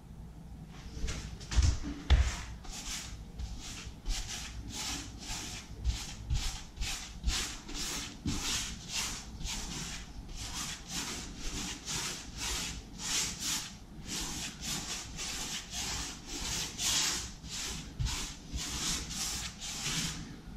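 A 1-inch square polyester paintbrush brushing paint onto a wall in quick back-and-forth strokes, about two a second, starting about a second in.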